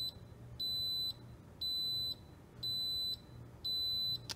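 Instant Pot Duo Plus electric pressure cooker beeping a string of high, even beeps about once a second, each about half a second long. It is the end-of-cycle signal of the Yogurt program's boil step, when the display shows "Yogt": the milk has been heated to about 185 degrees.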